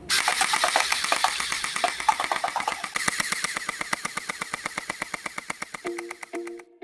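Mini M416 electric gel blaster firing on full auto: a rapid, even rattle of shots that stops suddenly near the end. Plucked-string music comes in just before it stops.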